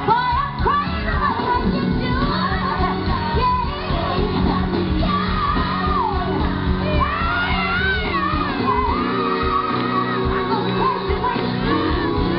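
Live R&B band with a woman singing lead over steady bass and drums, heard from among the audience.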